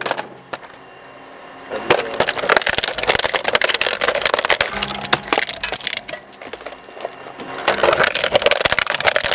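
Twin-shaft shredder's steel cutters crunching a hollow plastic toy airplane, a dense run of cracks and snaps of breaking plastic. It starts about two seconds in, eases off briefly around six seconds, then crunches on again.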